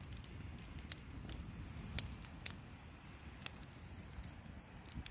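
Wood campfire crackling, with sharp irregular pops and snaps over a low steady rumble.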